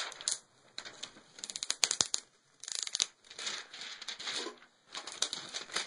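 Plastic cover from a replacement laptop screen crinkling as it is peeled off and handled, in several bursts of rapid crackling.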